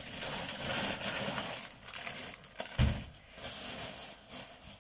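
Shopping bag and grocery packaging rustling and crinkling as items are rummaged out, with a thump about three seconds in.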